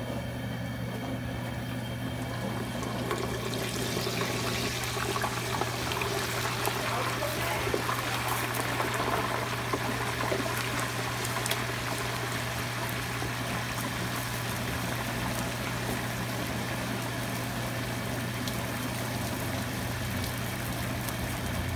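A whole turkey deep-frying in a pot of hot oil: the oil sizzles and bubbles hard, swelling about four seconds in as the bird goes under and carrying on steadily. Beneath it runs the steady low hum of the propane burner.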